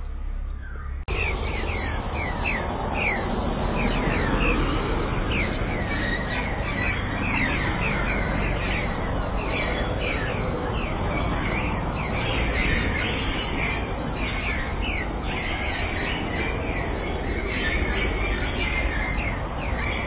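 Many caged birds chirping at once, a busy din of short high chirps that overlap without pause, over a steady background hum. It starts abruptly about a second in.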